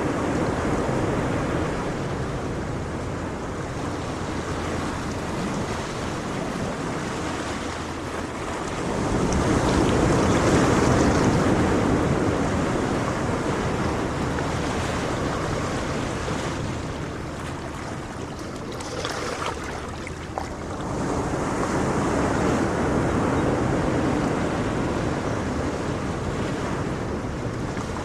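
Ocean waves washing in, a steady surf that swells twice and ebbs between, with some wind noise on the microphone.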